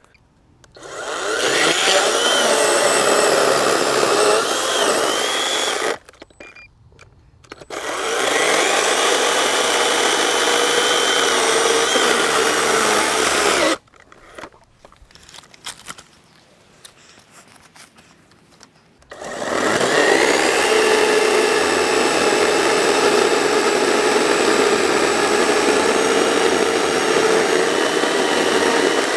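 Greenworks Digipro 40V brushless battery chainsaw cutting through a log in three runs of several seconds each, with short pauses between. The motor gives a steady whine, and a few faint knocks fall in the longer pause.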